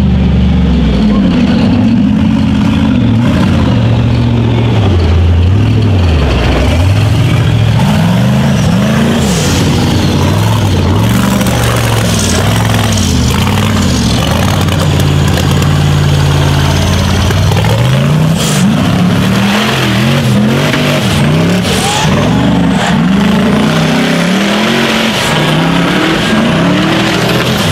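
Rock bouncer buggy engine revving hard as it climbs a steep dirt hill, its pitch rising and falling over and over as the throttle is worked.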